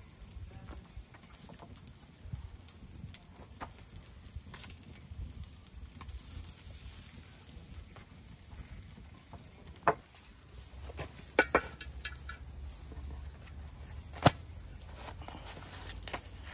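Wood fire crackling under a grill of meat skewers, with scattered small pops. A few sharp knocks stand out, two close together about eleven seconds in and the loudest near the end.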